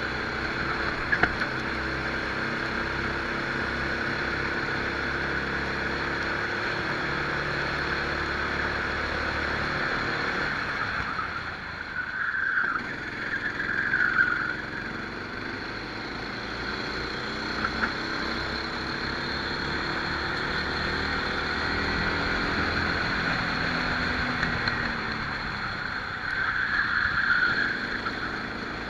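Rental kart engine running under race load, heard onboard with wind noise, its pitch rising and falling as the kart accelerates and slows through the lap. There are brief louder bursts about twelve to fourteen seconds in and again near the end.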